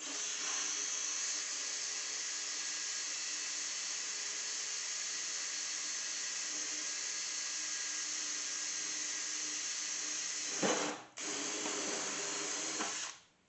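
Power drill drilling out a rivet in a PC case. The motor runs steadily for about ten seconds, gives a brief loud spike and a short break just before 11 s, then runs for about two more seconds and stops.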